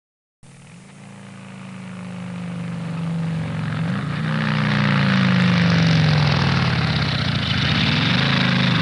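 Modified V8 engine of a 2002 Chevrolet Avalanche, fitted with a cam and headers, running after an abrupt start; it grows steadily louder over several seconds, with its pitch rising briefly twice as it revs.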